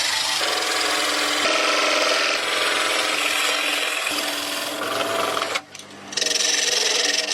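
A tool rubbing and rasping against wood, a steady scraping noise with a faint hum under it, broken by a short gap a little after five seconds.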